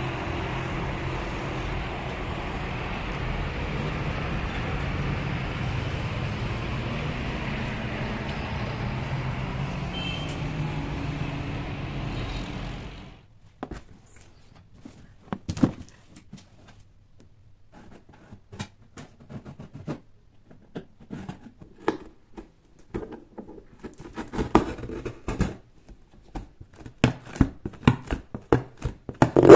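A steady wash of city traffic noise for about the first thirteen seconds, which cuts off suddenly. Then come scattered knocks and scrapes of cardboard delivery boxes being handled, growing busier near the end as a blade slits the packing tape.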